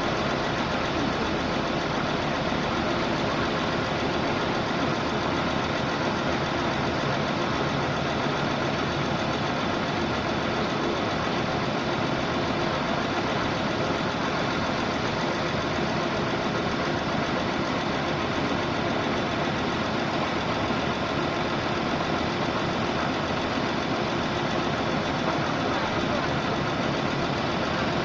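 Engine of a 655 CFM portable air compressor running steadily at an even speed.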